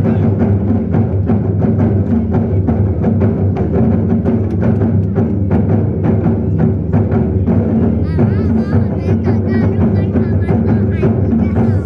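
A Zen drumming ensemble plays large drums in a fast, steady rhythm of heavy strokes. About eight seconds in, a wavering pitched part joins over the drums.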